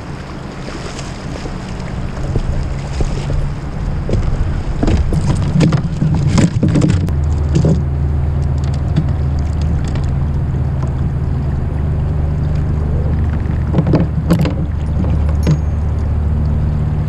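Choppy river water and a steady low rumble of wind on a kayak-mounted camera microphone, with clusters of knocks and splashes about five seconds in and again near fourteen seconds as a smallmouth bass is landed and handled on the kayak.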